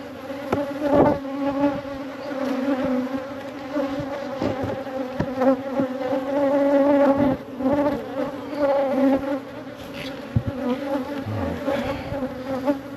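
Honeybees buzzing densely around the hive, a steady drone whose pitch wavers slightly. A few light knocks sound through it, the loudest about a second in.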